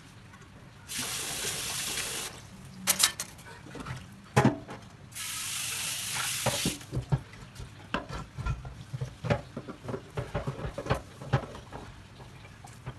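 Kitchen tap running into a frying pan in a stainless steel sink, twice for a second or so each, with sharp knocks and clatter of the pan and utensils against the sink as it is scrubbed and rinsed.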